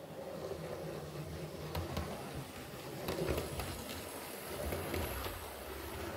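Model multiple-unit train running along the track and away, a low rumble from its motor and wheels with a few light clicks.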